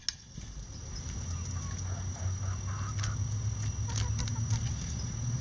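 Bantam chickens pecking at a hanging red cabbage: scattered sharp taps of beaks on the leaves, with a few soft clucks in the middle. A steady low rumble and a thin high whine run underneath.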